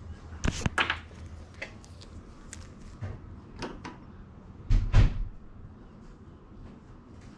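A few sharp knocks and clatters, then a heavier thump about five seconds in.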